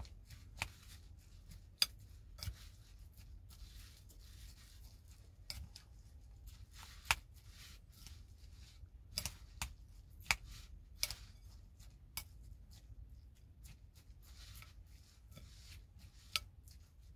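Metal spoon clicking and scraping against a ceramic bowl while stirring a chopped onion mixture, in short irregular clicks a second or two apart, the sharpest about two, seven and ten seconds in.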